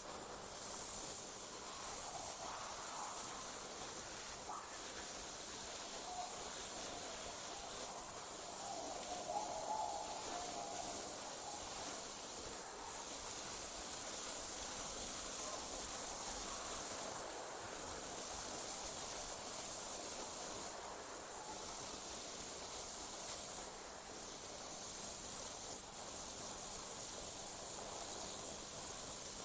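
Night insects trilling steadily in a very high, continuous chorus, broken by brief pauses every few seconds.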